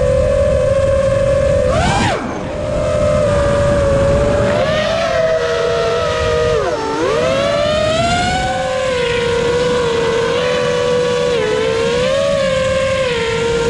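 FPV quadcopter's brushless motors and propellers whining. The pitch holds steady, rises briefly with a burst of throttle about two seconds in, dips sharply about seven seconds in, then climbs again and wavers as the throttle is worked.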